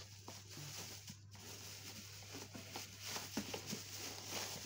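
Clear plastic bag crinkling and rustling in irregular short bursts as a wrapped wall-fan motor housing is handled, with a faint steady low hum underneath.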